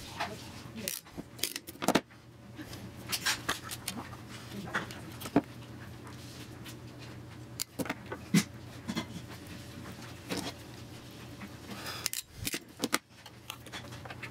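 Hand crimping tool squeezing metal terminals onto wires, with small parts handled: scattered, irregular clicks and light metallic taps over a steady low hum.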